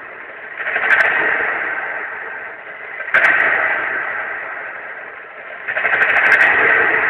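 College drumline of snare drums and crash cymbals playing in three swells, each building up or hitting at once and then ringing and fading. It sounds thin, heard off a TV speaker with no high end.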